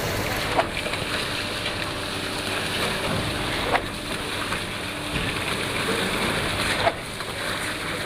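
Concrete pump running steadily, with a sharp knock about every three seconds, three in all, as the pump strokes and shifts its valve over a steady wash of engine noise.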